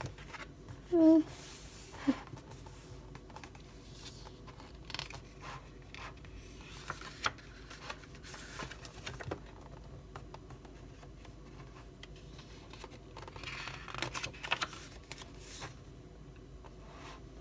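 Album photo book pages being turned and handled: soft paper rustles, swishes and light taps at irregular moments. A short hummed vocal sound about a second in is the loudest sound.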